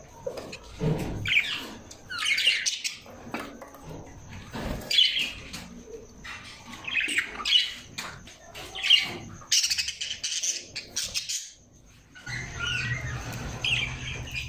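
Parrots chirping and squawking in short repeated calls, with a brief lull about twelve seconds in, after which a low steady hum sits under the calls.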